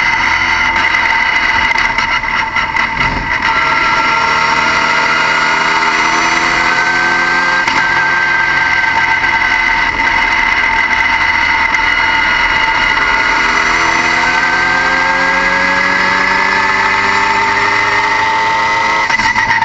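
Car engine running under a steady high-pitched whine, its pitch climbing slowly twice, once from about four seconds in and again from about two-thirds of the way through.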